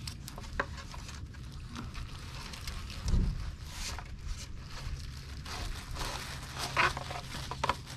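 A fishing rod in plastic wrap being slid out of a cardboard rod shipping tube: scraping and crinkling handling noise, with a dull thump about three seconds in and sharper clicks near the end. A low steady hum runs underneath.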